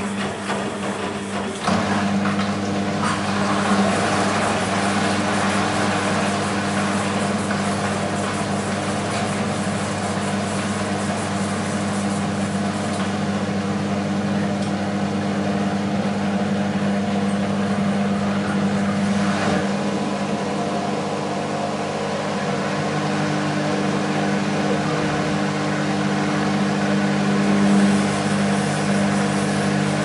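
BEKO WMB 51441 front-loading washing machine running mid-cycle: after a few knocks, a steady low motor hum sets in about two seconds in as the drum turns the wet laundry and water.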